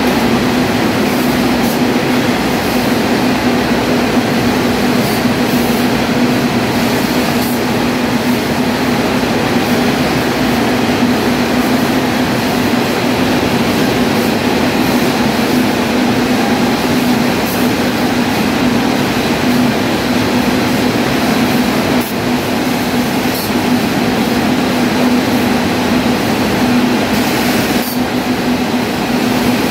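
Muratec 21C automatic yarn winder running: a steady, loud machine din with a constant hum under it and occasional faint ticks, with no let-up.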